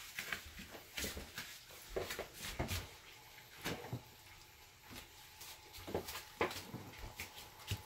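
Scattered light knocks and clicks of someone moving about a kitchen, opening a refrigerator and handling things inside it. A faint steady tone comes in about six seconds in, once the fridge is open.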